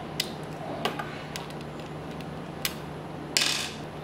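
Scattered sharp plastic clicks and taps from a pistol-grip RC car transmitter being handled and its buttons pressed, with a brief scraping rustle near the end, over a steady low hum.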